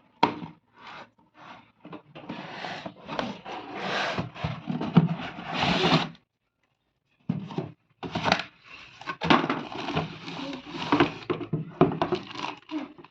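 Cardboard box and packaging being handled and unpacked: irregular rubbing, scraping and knocking, with a complete break of about a second just after six seconds in.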